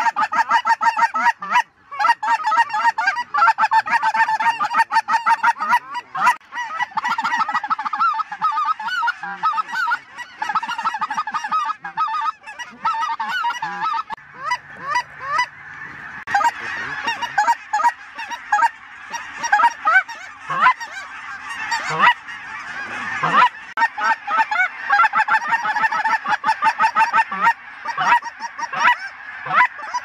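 Dense, continuous goose honking: many short calls overlapping in a steady chorus. It thins out a little around the middle, and a few louder single honks stand out later.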